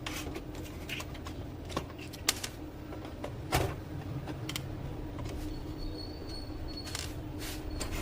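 Scattered small clicks and knocks of a screwdriver undoing the nuts on the chassis of an HP LaserJet M1005 printer, one louder knock about halfway through, over a steady low hum.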